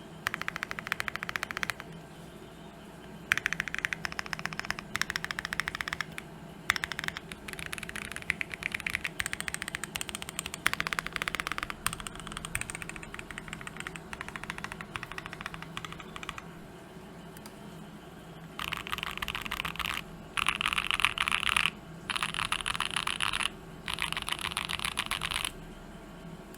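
Typing on a TKC Portico custom mechanical keyboard with an FR4 plate, lubed switches and GMK keycaps. The keys clack in quick bursts of fast keystrokes separated by short pauses, with a longer pause midway. The last few bursts are denser and louder.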